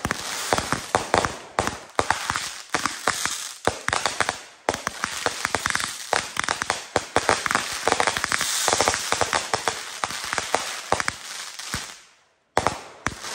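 A rapid barrage of consumer fireworks: many sharp shots and bangs a second, mixed with crackle from the bursting stars. It stops briefly about twelve seconds in, then a few more bangs follow.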